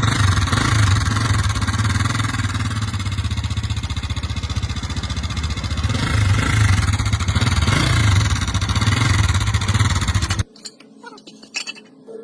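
Pushrod motorcycle engine running steadily and loudly, the engine noise being checked as a problem. It cuts off suddenly about ten seconds in, leaving a few faint clicks.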